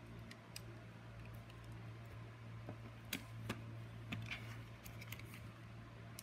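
Faint small clicks and taps from handling an opened iPhone and small tools on the work surface: a few scattered clicks, the clearest about halfway through, over a steady low electrical hum.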